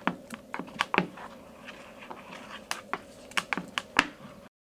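A plastic card scraping and tapping on a plastic-coated cardboard sheet as two-part epoxy is mixed: a run of irregular sharp clicks and taps that stops abruptly shortly before the end.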